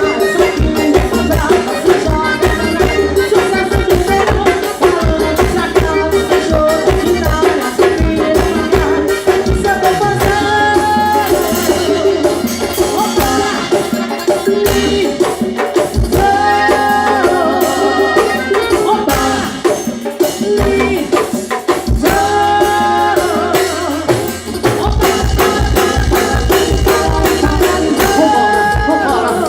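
Forró band music playing loudly, with a steady, quick drum beat and a shaker rhythm under held melody notes.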